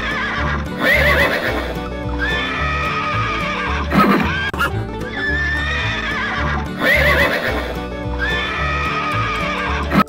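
Horses neighing and whinnying several times, with wavering calls, over background music with a steady beat.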